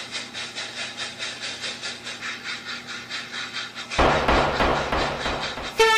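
Railway carriage rolling along, its wheels clattering rhythmically over the rail joints at several beats a second. About four seconds in it becomes a louder rumble.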